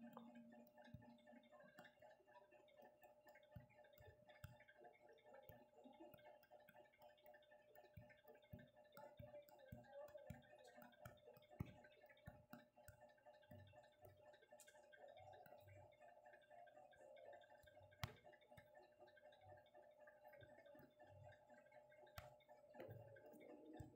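Near silence: faint room tone with a steady low hum and scattered faint ticks and clicks.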